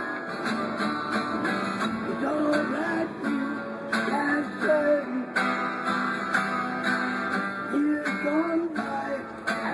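Acoustic guitar strummed in a steady rhythm, chords ringing between the strokes.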